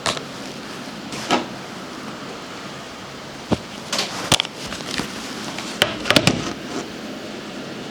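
Scattered sharp clicks and knocks over a steady hiss, some coming in quick clusters of two or three, loudest about four and six seconds in.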